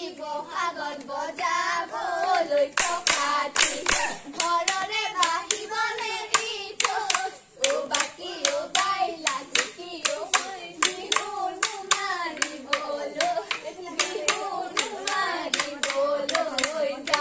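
Girls' voices singing a Bihu song together, with steady rhythmic hand-clapping that starts about three seconds in and keeps time.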